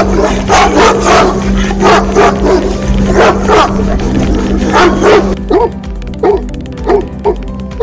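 A Bully Kutta (Pakistani mastiff) barking over and over, loud deep barks about twice a second. About five seconds in, it gives way to a Tosa Inu barking in shorter, sharper barks at a similar pace.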